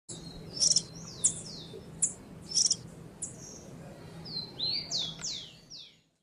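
Red-whiskered bulbul singing: sharp high chirps about every half second, then near the end a quick run of downward-slurred whistles.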